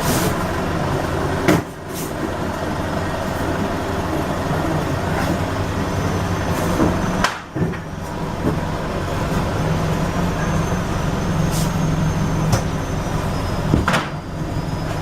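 A machine running with a steady low hum, and a few sharp clicks or knocks: about a second and a half in, about seven seconds in, and near the end.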